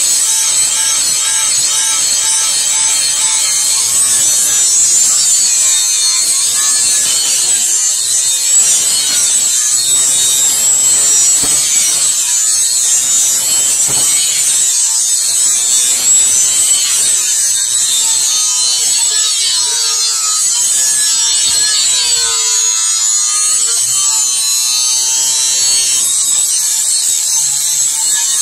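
Electric angle grinder with an abrasive disc grinding the steel of a billhook blade made from a chainsaw guide bar: a steady, loud, hissing grind with a motor whine that wavers in pitch.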